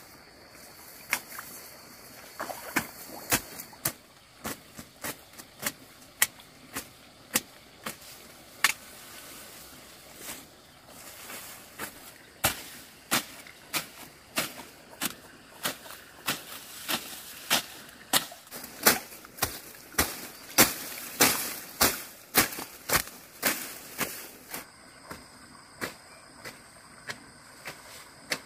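A long series of sharp knocks or strikes. They are sparse at first, then settle into a steadier, louder run of about three every two seconds.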